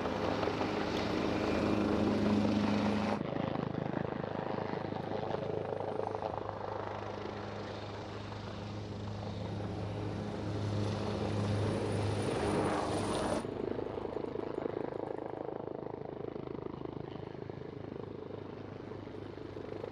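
Firefighting helicopters hovering low, rotor and engine running steadily, with a deep hum under a rushing hiss. The sound jumps abruptly twice, about three seconds in and again near thirteen seconds, as one helicopter recording cuts to another.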